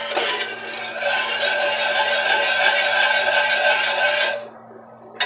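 Wire whisk scraping and stirring round the bottom of a cast-iron skillet of thickened cream gravy, a steady rasping that stops a second before the end, over a faint low hum.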